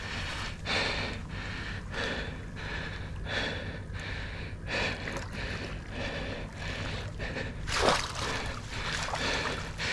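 A person breathing hard in short, repeated puffs, roughly one a second, the strongest near the end: the exertion of landing a big alligator gar.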